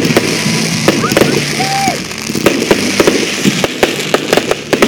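Aerial fireworks bursting: a rapid, uneven series of sharp bangs and crackles.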